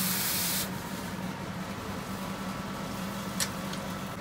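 Red-hot knife blade hissing as it is quenched for zone hardening, the hiss cutting off sharply about half a second in. Then a steady low hum with a single sharp metallic click a little after three seconds.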